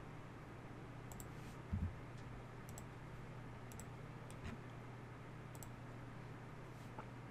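A few scattered computer mouse clicks over a low steady hum, with a louder dull thump just under two seconds in.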